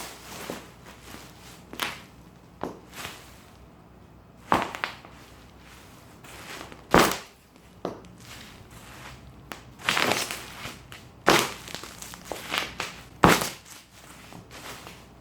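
Bubble wrap being popped: irregular sharp pops, often a second or more apart, some with a short crinkle of the plastic after them.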